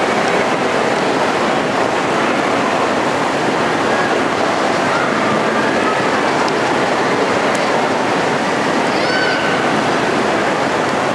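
Steady wash of crowd noise in a large, echoing shopping-mall atrium: many distant voices and footsteps blurred into one even rumble, with a couple of faint higher voices rising out of it briefly.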